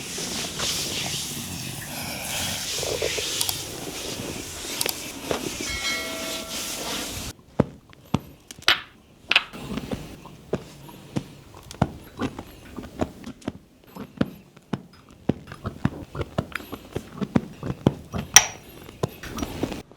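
A steady hiss for about seven seconds, then a sudden cut. After it comes a run of irregular sharp taps and slaps of hands working on a body during a massage, several a second.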